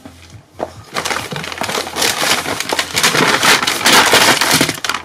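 Packing paper being crumpled and rustled by hand: a dense, irregular crackling that starts about half a second in and is loudest in the middle.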